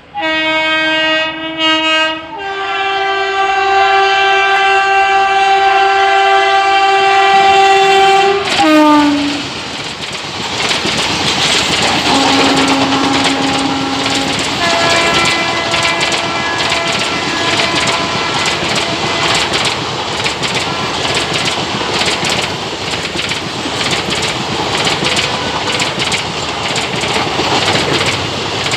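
Train horn of the Kerala Superfast Express's locomotive: a short blast, then a long held blast whose pitch drops sharply about eight and a half seconds in as the locomotive passes. Then the coaches roll by with wheels clicking over the rail joints, while fainter horn tones sound again from about twelve seconds in.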